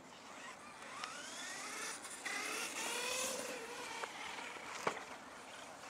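Radio-controlled car's motor whining as the car drives off, the pitch climbing from about a second in and falling away after about three seconds. A sharp click near the end.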